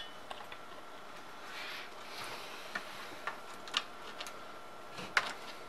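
A few scattered light clicks and taps of fingers handling the wire connectors and plastic parts of a pressure cooker's control board, the loudest near the end.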